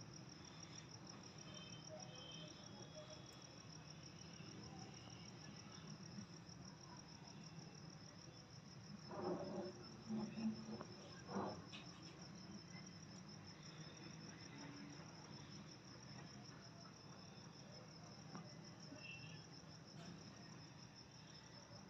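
A cricket trilling steadily: one continuous, high, finely pulsing trill over an otherwise quiet background. A few faint short sounds come about nine to twelve seconds in.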